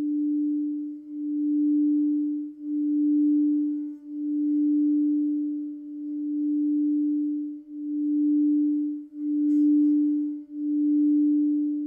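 Frosted quartz crystal singing bowl sung by circling a quartz wand around its rim: one steady low tone with a faint higher overtone, swelling and fading about every second and a half.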